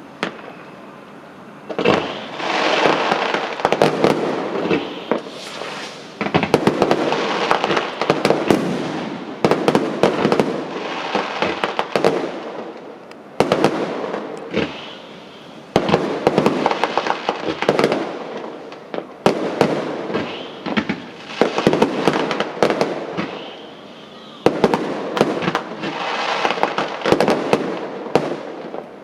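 Fireworks going off in waves of rapid bangs and crackling, each volley lasting a few seconds, with short lulls between them.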